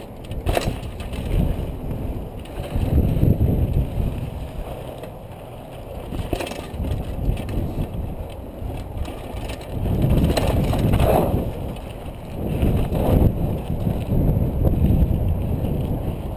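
Downhill mountain bike, a Specialized Big Hit, ridden fast over dirt and granite rock: a rough rolling rumble of tyres and rattling bike with wind on the microphone, rising and falling with speed, and a few sharp knocks as the wheels strike rock.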